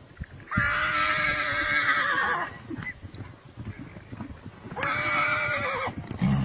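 Horse neighing: two long, high calls, the first about two seconds long starting half a second in and the second about a second long near the end, each wavering slightly in pitch.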